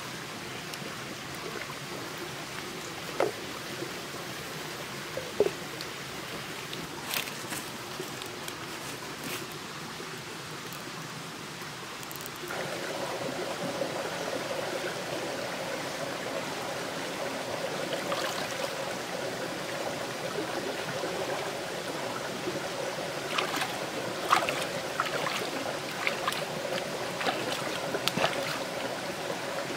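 A shallow stream trickling over rocks, louder from about halfway in, with a run of splashes near the end from hands washing leafy greens in the water. Earlier, a wood cooking fire gives a few sharp pops.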